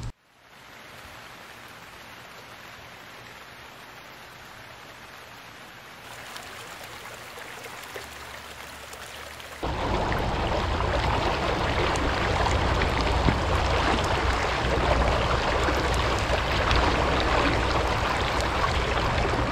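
Creek water running over rocks, a steady rushing. It gets louder in steps about six and nearly ten seconds in. From then on it is the loud rush of a swollen, flooded creek running high over its banks.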